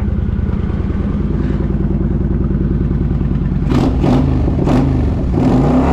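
Kawasaki VN900's 903 cc V-twin engine running steadily through its still-baffled exhaust, running at last now that a blown relay and a faulty ignition switch have been replaced. In the second half there are a few sharp clicks, and the engine pitch rises and falls, as if blipped on the throttle.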